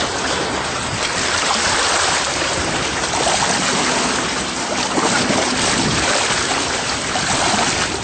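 Steady rush of shallow sea water washing and lapping at the shore, mixed with wind on the microphone.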